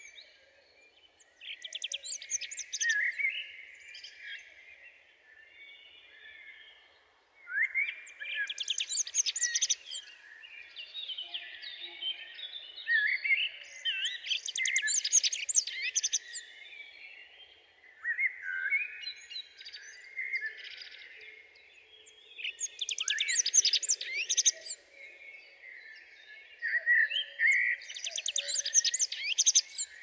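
Birdsong: a songbird singing loud, rapid trilling phrases about every five seconds, with quieter chirps between them.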